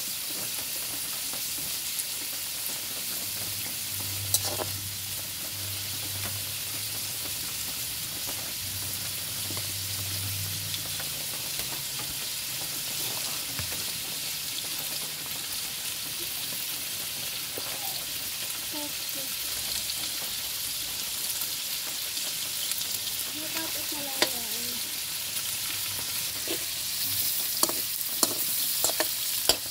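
Pork and chicken pieces sizzling in oil in a steel wok over a wood fire, a steady hiss. A few sharp clicks of a metal spatula against the pan come through, most of them near the end as the meat is turned.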